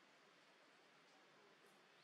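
Near silence: faint steady hiss with a couple of very faint, brief high chirps.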